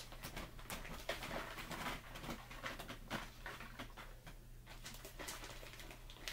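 Plastic bag of shredded mozzarella crinkling and rustling as cheese is pinched out and sprinkled over broccoli in aluminium foil pans, in a string of irregular crackles and light ticks over a steady low hum.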